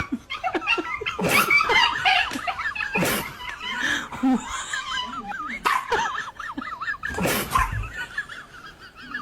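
People laughing and talking in short bursts, with high, wavering voiced sounds throughout.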